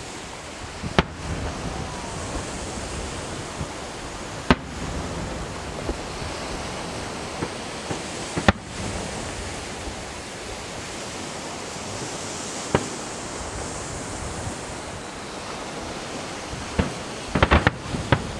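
Fireworks going off: single sharp bangs every three or four seconds, then a quick cluster of bangs near the end, over steady wind noise.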